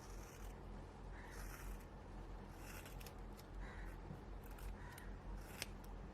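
Large scissors snipping through hair, one faint cut about every second, with a sharper click near the end.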